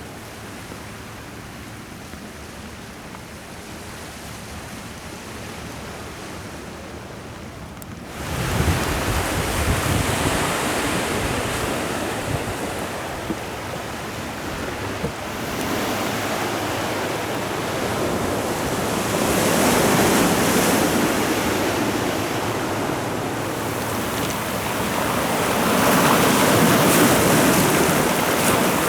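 Sea surf washing onto the shore, with wind buffeting the microphone. The surf grows abruptly louder about eight seconds in, then swells up in two big surges, the second near the end.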